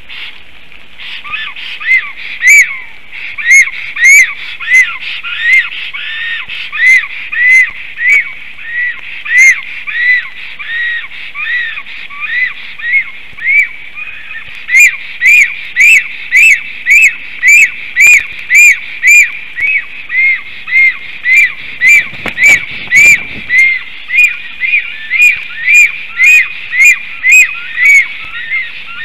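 Male black stork giving his courtship song to the arriving female: a long series of whistled notes, each rising then falling in pitch, about one a second at first, then quicker and louder from about halfway. Steady rain hiss underneath.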